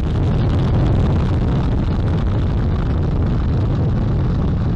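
Space Launch System rocket's four RS-25 core-stage engines and two solid rocket boosters at full thrust just after liftoff: a loud, steady, deep rumble.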